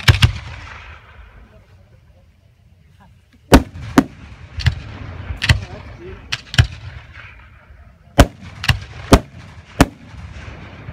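Aerial fireworks shells going off. There is a sharp bang right at the start, then a pause of about three seconds, then about ten sharp bangs at uneven intervals over the next six seconds, each with echoes and crackle trailing after it.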